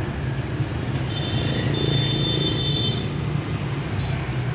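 Motorbike traffic running past as a steady low rumble. From about a second in, a high steady whine sounds for about two seconds.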